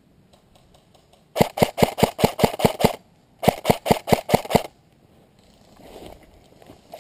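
Airsoft rifle firing two quick strings of sharp single shots, about six a second, with a short pause between them. A softer rustle of brush follows near the end.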